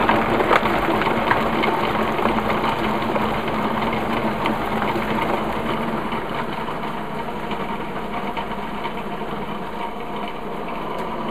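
Countertop food processor running steadily, its blade chopping frozen banana chunks, dates and carob powder into a coarse mix. The sound grows gradually quieter as the frozen mix stops circulating around the blade, the sign that it must be pressed back down into the blades.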